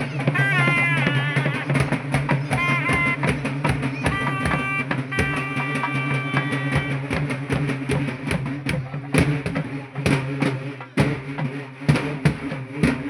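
Festival procession music: a melody instrument playing bending, wavering notes over steady, busy drumming. After about seven seconds the melody drops out and only the drum strokes carry on.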